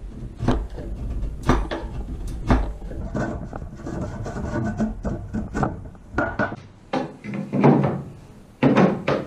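A small hand tool shaving and rasping the end of a sapele piece in short, repeated strokes, about one a second at first, to trim it back so its lip will fit over the joint. Near the end come a few wooden knocks as the piece is tried in place.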